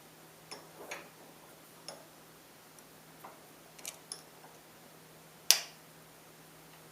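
Irregular light metallic clicks and taps as pliers work a thin strip of tuna-can tin around a nail held in a vise, with one sharp, much louder click about five and a half seconds in.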